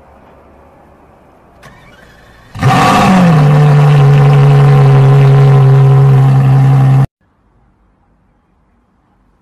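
A car engine starts with a brief flare in pitch, then settles into a loud, steady idle. It cuts off suddenly after about four and a half seconds.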